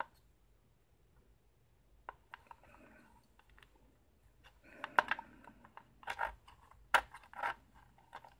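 Light metallic clicks and taps from a 6-pin Silka Euro cylinder lock being gutted, as a plug follower is pushed through the cylinder to draw out the plug. The clicks are scattered, with sharp ones about five and seven seconds in.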